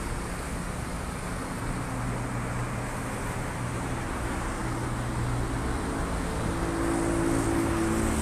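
Steady traffic noise from a multi-lane highway, cars passing below. A low steady hum comes in a little louder near the end.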